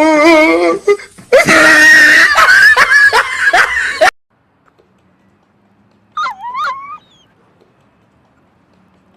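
A dog vocalizing loudly with a wavering, warbling pitch, mixed with shrill cries, cut off abruptly about four seconds in; a short squeaky whine follows a couple of seconds later.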